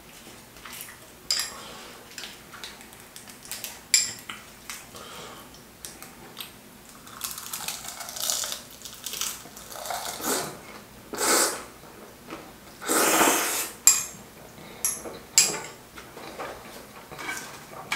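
Metal chopsticks clicking against a ceramic bowl, with bibim noodles being slurped in several long pulls in the middle stretch.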